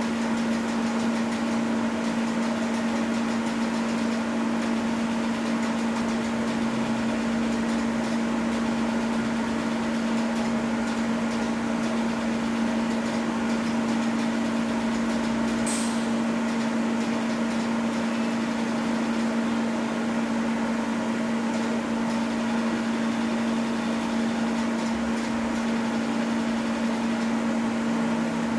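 Steady hum of a laser welding workstation running, one strong low tone over an even whir; a single sharp click about sixteen seconds in.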